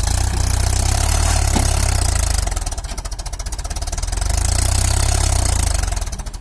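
Mahindra 575 DI tractor's four-cylinder diesel engine running hard under heavy load as it strains to pull a fully loaded trolley out of sand, so hard that the front wheels lift. The loud engine sound starts abruptly, goes into a rapid even throbbing for a second or so about halfway through, then runs loud again before easing off near the end.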